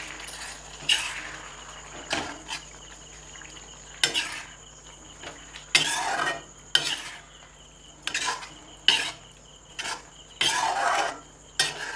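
Metal slotted spoon stirring and scraping chicken masala against an iron kadhai, an irregular scrape or clatter every second or so, with the wet masala sizzling softly underneath.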